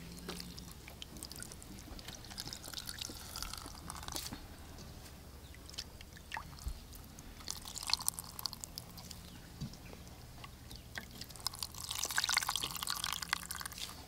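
Coconut milk pouring and dripping into a plastic strainer as handfuls of wet grated coconut are squeezed by hand: an uneven wet patter that comes and goes, busiest near the end.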